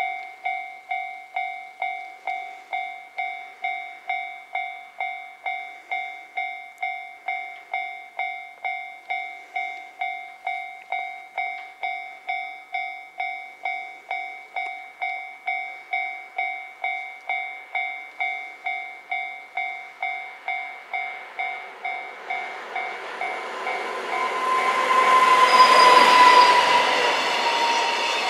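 A Japanese level-crossing warning bell dings about twice a second. From about 22 seconds in, a JR Freight EF510 electric locomotive and its container wagons pass close by. The wheels running over the rails grow loud, with a brief high tone at the loudest point, and the wagons keep clattering past.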